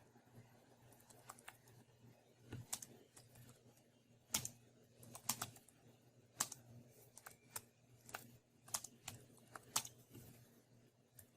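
Keys tapped on a computer keyboard: sparse, irregular clicks, a few strongest from about four seconds in, over a faint steady low hum.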